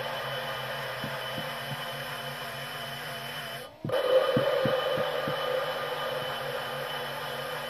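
Electric drill running steadily, spinning an engine valve against its seat to lap it, with a wavering hum and soft knocks about three a second at times. The sound drops out briefly just before the middle, then comes back.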